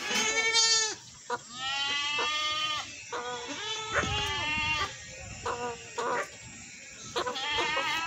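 Goat bleating: several quavering bleats in close succession, with short pauses between them.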